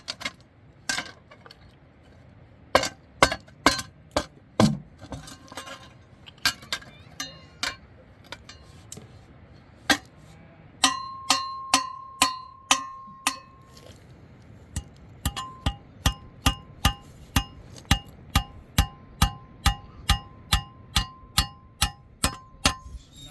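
Hammer striking nails, each blow ringing with a metallic tone. The blows come irregularly at first, then settle into a steady run of about two to three strikes a second in the second half.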